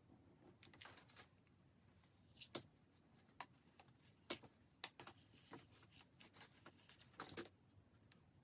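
Faint, irregular clicks and taps of small objects being handled, with a few sharper ones and a brief rustle about seven seconds in.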